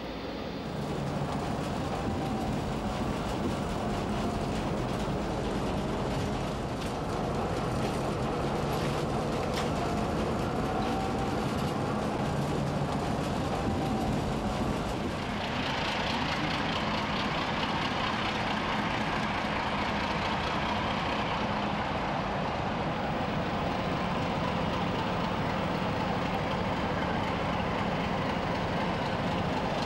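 Diesel locomotive engine running steadily, a low engine note with a faint wavering whine above it. About halfway through a louder, brighter hiss of railway running noise comes in over it.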